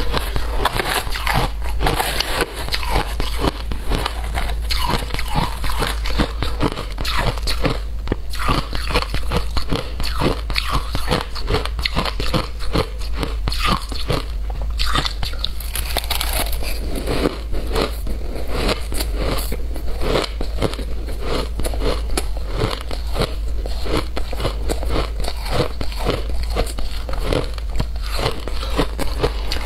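Shaved ice being bitten and chewed, crunched close to a clip-on microphone: a dense, continuous run of crisp crackles and crunches.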